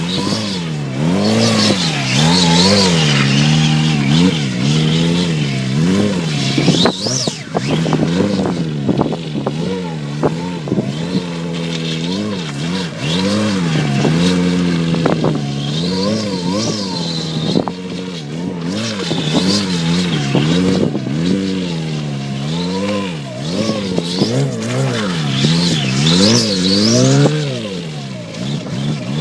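A motorcycle engine being revved over and over, its pitch rising and falling with each blip of the throttle.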